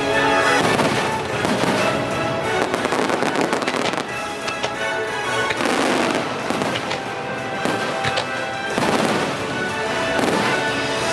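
Aerial fireworks bursting and crackling in several waves over the show's orchestral soundtrack playing from the lagoon's speakers.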